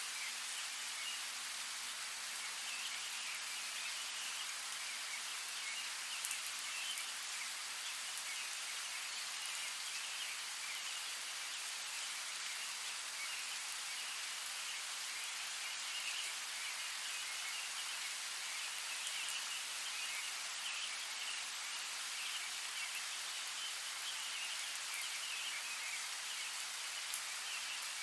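Steady rain with an even hiss and a couple of sharper drop ticks, one about six seconds in and one near the end. A faint high, flickering chirring comes and goes behind it.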